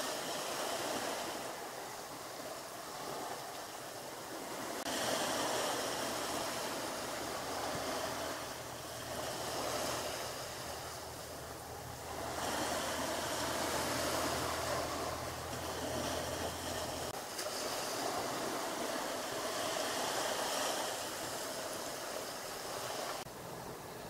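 Small sea waves washing onto a pebble shore, the wash swelling and drawing back every few seconds. A low steady hum runs underneath for a stretch in the middle.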